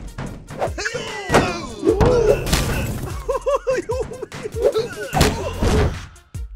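Cartoon fight sound effects over background music: several sharp hits and crashes, the loudest just past the middle, and a quick run of short pitched blips in between.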